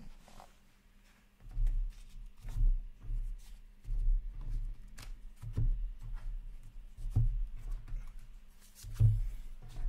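Stacks of hockey cards being picked up, shifted and set down on a padded table mat. It sounds like a series of dull thumps on the table with light clicks and rustles, about one every second or so, the loudest near the end.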